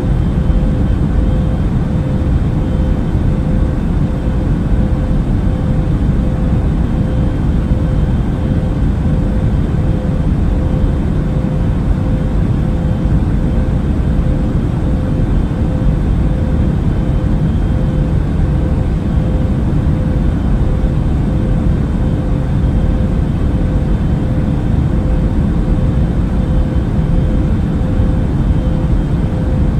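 Airliner cabin noise: a steady, deep rush of air and engine noise with a faint steady hum above it.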